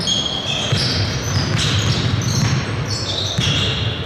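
Basketball game in a gym: sneakers squeaking on the court in many short high squeals, over a steady low rumble of the hall, with the ball bouncing.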